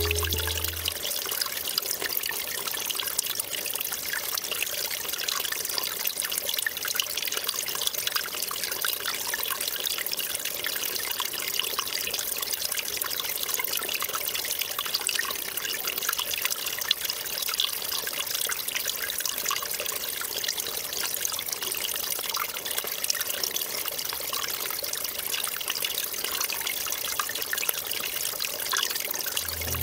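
Small forest stream trickling and babbling over stones and leaf litter: a steady, splashy, high-pitched wash of running water.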